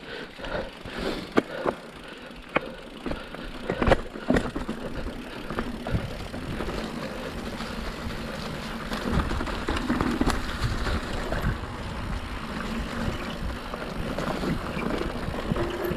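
Mountain bike riding over a rough dirt trail: sharp knocks and rattles of the bike over bumps for the first few seconds, then a steady rush of tyre and wind noise that grows louder about halfway through.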